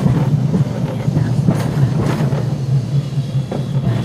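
Electric tram running along its track: a steady low hum with a few short clicks of the wheels on the rails.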